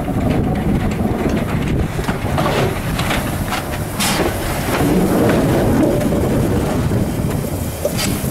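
Small steam tram locomotive running slowly past at close range, with a few sharp metallic clicks from its wheels and running gear. Heavy wind rumble on the microphone.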